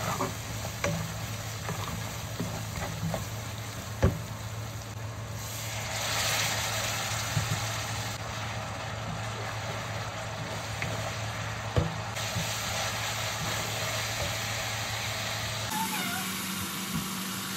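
Onion and spice masala sizzling in a nonstick wok as a spatula stirs and scrapes it, knocking against the pan a few times. About six seconds in, a louder hiss swells up as liquid hits the hot pan and steam rises. A steady low hum runs underneath.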